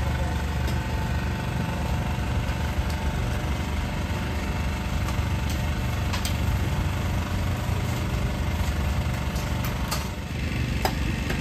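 An engine running steadily at idle, a continuous low hum with a few faint clicks over it.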